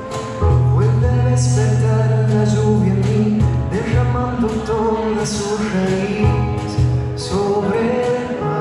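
Live band playing a song: a singer over electric guitar, keyboard and drums, with cymbal hits. The full band with its low notes comes in about half a second in.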